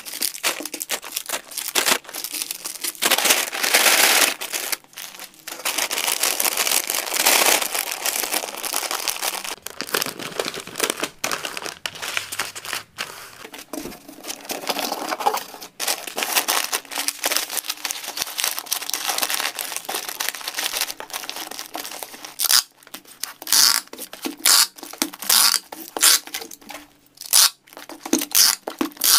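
Crinkling of plastic snack bags and kraft paper as packets are packed into a paper bag and cardboard box. Toward the end come short, separate bursts as packing tape is pulled and torn from a handheld dispenser.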